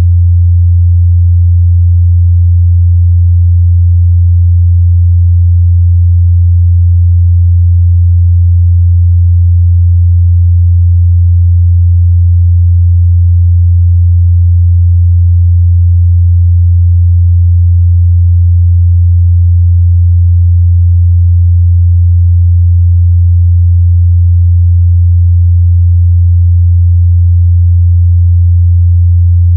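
A steady, loud 87 Hz pure sine test tone, a single unwavering low hum used to check a speaker's or headphone's mid-bass response.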